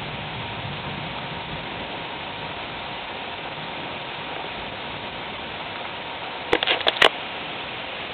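Steady rain falling, with a rapid run of about four sharp cracks near the end.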